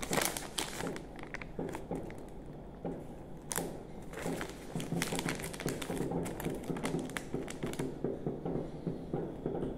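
Crinkly plastic wrapper of an ice-cream biscuit being handled, with irregular crackles: a sharp one at the start, then a dense run of them from about four to eight seconds in.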